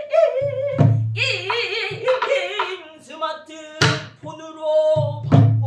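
A woman singing pansori in long held notes that waver and bend in pitch. A Korean drum accompanies her with three strokes, each a sharp crack with a low boom.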